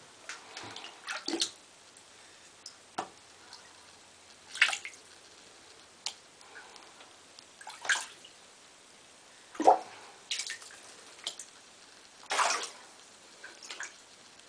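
Bengal cat pawing at shallow water in a bathtub: a series of short, separate splashes and drips at irregular intervals, a few of them louder than the rest.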